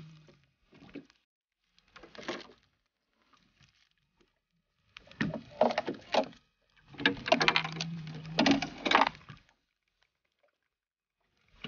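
Landing net scooping a hooked whitefish out of the lake: splashing and water streaming off the net, loudest in two bursts in the second half.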